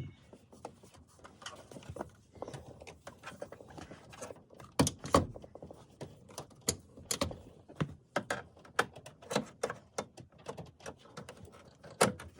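Irregular clicks and knocks of plastic dash parts and the instrument cluster being handled and fitted in a 2005 Chevrolet Trailblazer dash, with a couple of louder knocks about five seconds in and near the end.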